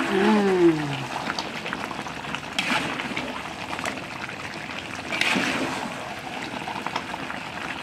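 Spatula stirring and scraping chicken pieces around a large wok of thick chili sauce, over a steady sizzle and bubble, with a few sharper scrapes against the pan about a third and two thirds of the way in. A brief tone falling in pitch is heard in the first second.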